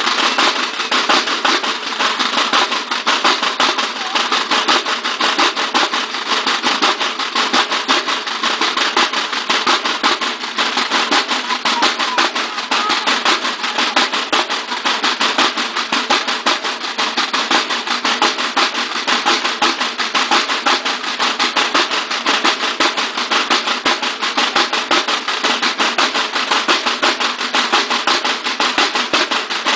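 A line of field drums of a Mexican banda de guerra (drum-and-bugle corps) playing together in a fast, steady marching rhythm of rapid strokes, drums alone without the bugles.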